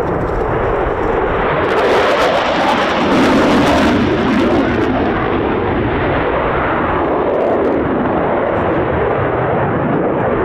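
Eurofighter Typhoon's twin EJ200 turbofan engines heard from the ground as the jet flies its display: loud rushing jet noise that swells about two to four seconds in, then holds steady.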